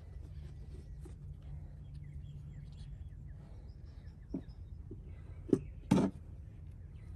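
Two sharp clicks about half a second apart, a little over five seconds in, from small parts being handled at the van's fuel door, over a steady low hum and faint bird chirps.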